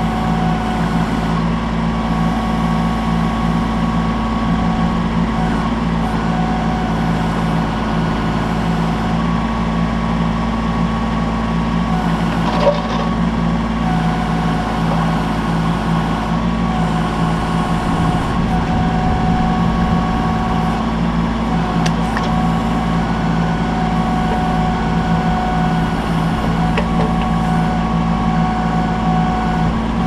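Kubota B2650 tractor's three-cylinder diesel running steadily as it powers the BH77 backhoe, with a higher whine that drops out and comes back as the boom, bucket and thumb are worked. A single knock sounds a little before halfway.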